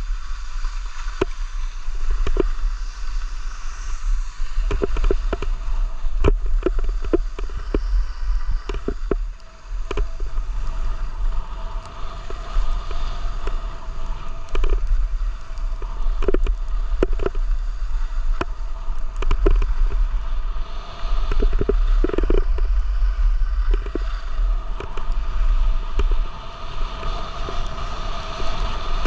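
Wind rumbling on the microphone of a camera moving downhill, over the steady hiss and scrape of skis sliding on packed snow, with scattered short clicks and knocks.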